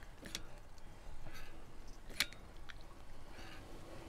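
Caulking gun laying a bead of construction adhesive along a plywood strip: soft squeezing and oozing of adhesive with a couple of sharp clicks from the gun.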